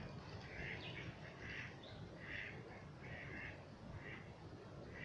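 Harsh bird calls repeated in a steady series, a short call roughly every half second, over a low steady background rumble.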